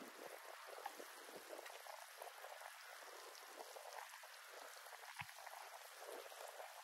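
Faint water sloshing and lapping as a manual pool vacuum head on a long pole is worked across the bottom of an above-ground pool, with a few small scattered ticks.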